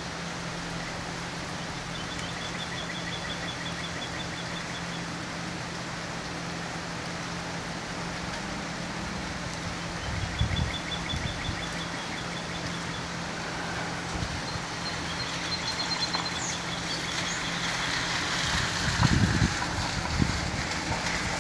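Steady rain with a vehicle engine idling in a low, even hum beneath it. A bird repeats a short, fast trill several times, and there are a couple of low bumps near the middle and near the end.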